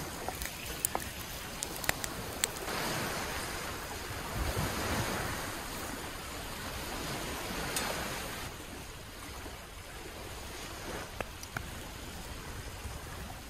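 Sea waves breaking and washing up on a sandy shore, with wind; the wash swells for a few seconds and then eases. A few sharp clicks stand out over it.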